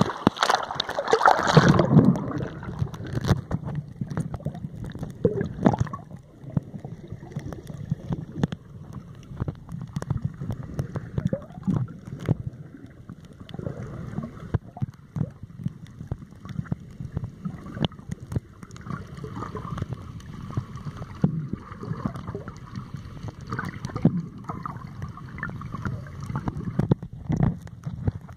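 Sea water heard through an underwater camera: a loud rush of water in the first two seconds as the camera goes under the surface, then muffled moving water with many small clicks and crackles.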